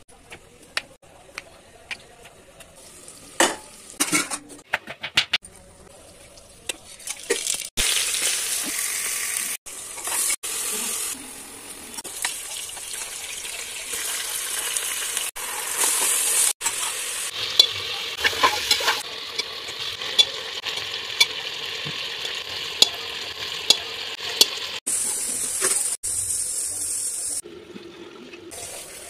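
A knife clicks sharply against a wooden board for the first few seconds as a bottle gourd is cut. Then mutton and onion masala sizzle and crackle in hot oil in an aluminium pressure cooker, a steady loud hiss that breaks off at sudden cuts, and near the end it turns quieter.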